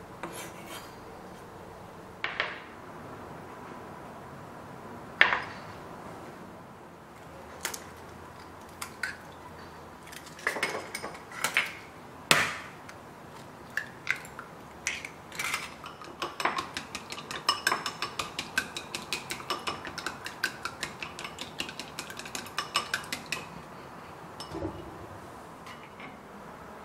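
Kitchen prep sounds: scattered single knocks and clinks of a knife, cutting board and glass bowls. From a little past halfway, a fast run of clinks comes several times a second for about seven seconds as two eggs are beaten in a glass bowl.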